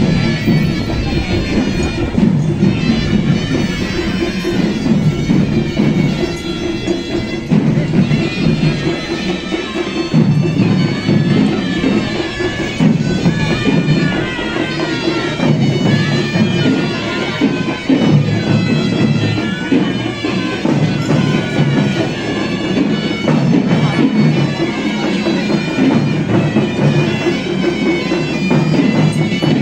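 Traditional music played loudly: a shrill reed wind instrument carrying a wavering, ornamented melody over drumming.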